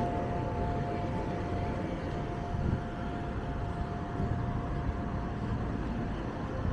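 Steady low rumble of street traffic in a city.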